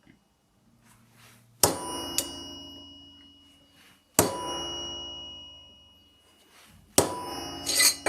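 Hammer striking a center punch held against metal on a steel block: three heavy blows about two and a half seconds apart, each followed by a long, fading metallic ring, with a few lighter taps in between.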